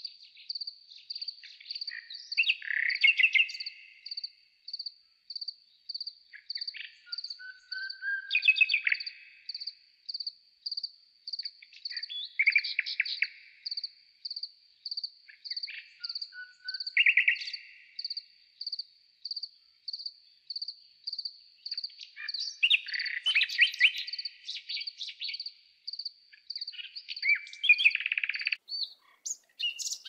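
A cricket chirps steadily in a high, even pulse about twice a second. Garden birds call over it several times, in short, louder phrases.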